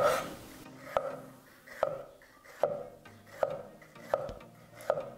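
Kitchen knife chopping red sweet pepper on a wooden cutting board: a steady knock of the blade on the board about every 0.8 seconds, seven strokes in all.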